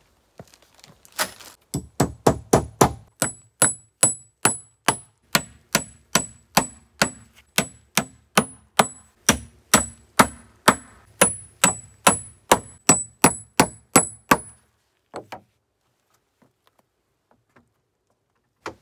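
Fiskars claw hammer driving nails into the log roof: a steady run of about two strikes a second, each with a brief high metallic ring, stopping a few seconds before the end.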